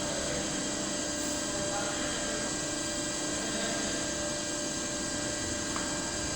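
CNC lathe running with a steady hum and whine of several fixed tones over a noisy bed, unchanging throughout.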